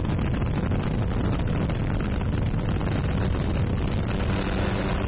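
Wind buffeting the microphone over a steady low engine drone; the engine's hum becomes more distinct about four seconds in.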